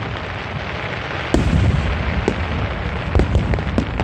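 Aerial fireworks bursting: a steady rumble of distant shells, then a sudden loud boom about a second and a half in, followed by scattered sharp cracks and pops.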